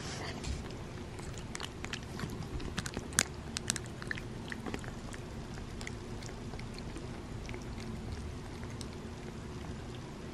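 A cat licking and chewing food off a plastic spoon: small wet smacks and clicks of its tongue and jaws, most of them in a quick cluster in the first few seconds, the sharpest about three seconds in.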